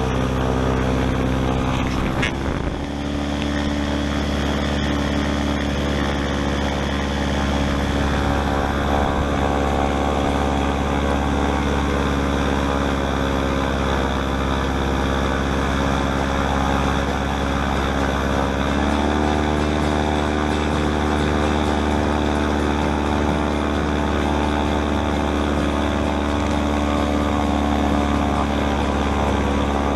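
Airboat engine and air propeller running steadily under way, a loud continuous drone. The engine note shifts about two seconds in and steps up in pitch a little past halfway as the throttle is opened.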